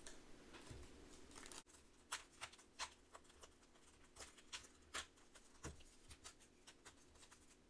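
Faint, irregular clicks and rustles of thin cardboard trading cards being pressed out of a perforated card sheet and handled.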